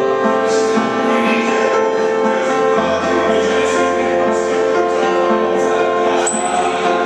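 Music: sustained keyboard chords over a held bass note that shifts to a new note about three seconds in.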